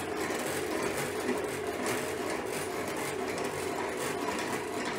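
Dadant six-frame radial honey extractor being hand-cranked, its top gearbox and spinning reel giving a steady mechanical whir as the heavy, honey-filled frames turn and sling honey against the drum wall.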